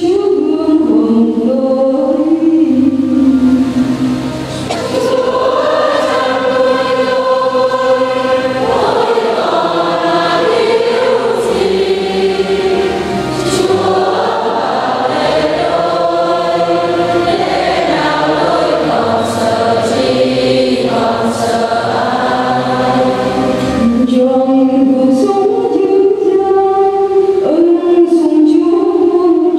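Choir singing a slow Catholic funeral hymn, with sustained, smoothly changing sung notes and a low held accompaniment.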